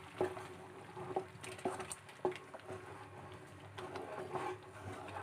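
Thick tamarind and jaggery mixture bubbling in a nonstick pan as a wooden spatula stirs it, faint, with a few light clicks and taps scattered through.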